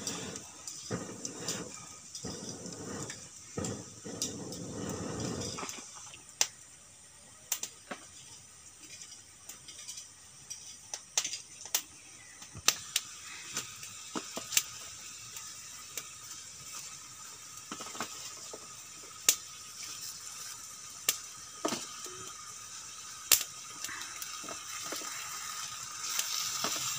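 Cooking over an open wood fire: irregular sharp clicks and crackles over a faint hiss, as fresh taro leaves are laid by hand into a pan of coconut milk. A denser rustling noise fills the first few seconds.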